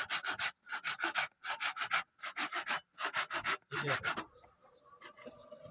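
Rhythmic rasping strokes of a hand file worked back and forth on the steel blade, about six strokes, stopping about four seconds in.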